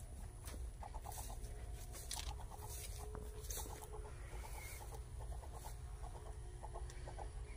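Chickens clucking in short runs of quick notes, repeated several times, with the crunch of footsteps on dry grass.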